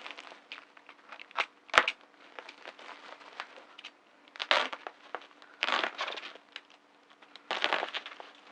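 Plastic packaging and bubble wrap being handled, crinkling and rustling in short bursts, with scattered clicks and one sharp snap about two seconds in.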